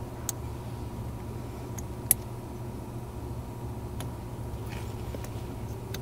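A few small sharp clicks of a plastic OBD2 connector and its terminals being handled and pushed, the sharpest about two seconds in, over a steady low hum.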